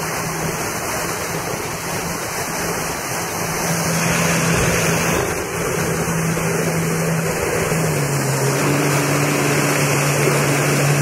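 Jet ski engine running under way, a steady engine note over the rush and splash of water from the hull and wake. About eight seconds in, the engine note steps down in pitch.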